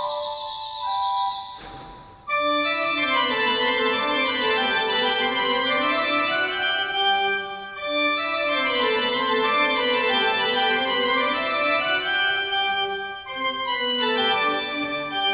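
Historic single-manual Italian pipe organ (Roccatagliata/Ciurlo, 1794) playing fast running figures and chords in a bright registration. A passage fades out about two seconds in, and after a brief gap the next one starts loudly.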